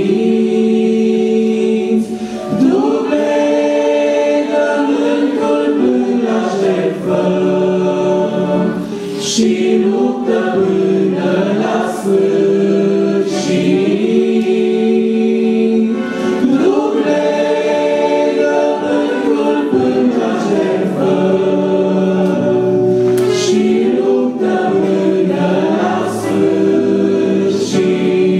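A woman and a man singing a Romanian Christian hymn together through microphones and a PA, with long held notes and gliding phrases, accompanied by sustained chords on a Yamaha electronic keyboard.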